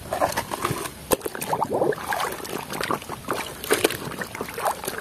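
Muddy water sloshing and splashing in a basin as a hand swishes through it, in irregular strokes.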